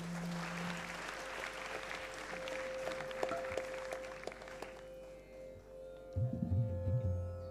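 A Carnatic ensemble's steady drone holds one pitch under scattered audience clapping that dies away after about five seconds. About six seconds in, low, deep notes start as the performance gets under way.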